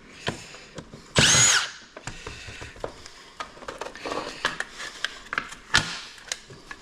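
A power drill driving a screw bit, run briefly: a short whine that rises and falls as it spins a screw out. Light clicks and rattles of the device's plastic and cast-metal parts being handled follow.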